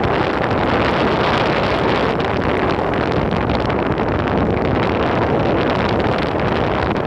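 Loud, steady wind buffeting on a phone microphone while riding an Enertion Raptor 2 electric skateboard, mixed with the crackly rumble of the board rolling over the road.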